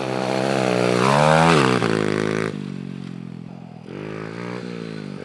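Apollo 125cc dirt bike's single-cylinder four-stroke engine being ridden under throttle. It revs up with a rising pitch and is loudest about a second and a half in, then drops off. After a sudden change it runs quieter and lower, climbing again briefly near the end.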